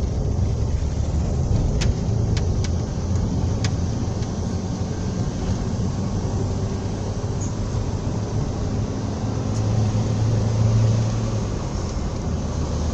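Car driving along a paved road, heard from inside the cabin: a steady low rumble of engine and tyres. A few light clicks come about two to four seconds in, and the low engine hum swells for a couple of seconds near the end.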